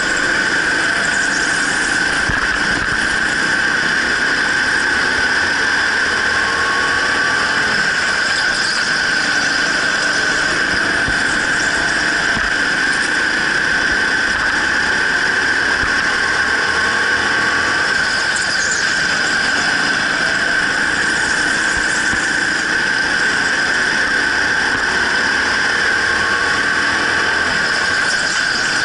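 Indoor racing go-kart running at race pace, with a loud, steady high-pitched whine and a fainter motor note that rises and falls.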